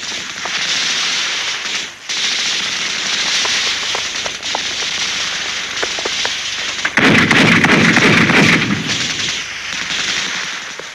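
Battle sound effects: scattered rifle shots over a dense, steady hiss, then a loud explosion about seven seconds in that lasts a second and a half before dying away.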